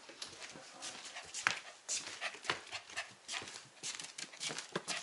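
A two-month-old golden retriever puppy's paws pattering on the floor: a run of light, irregular clicks and taps as it trots about.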